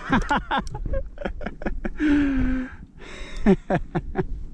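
Voices chatting over a marine radio, with a burst of hiss about two seconds in.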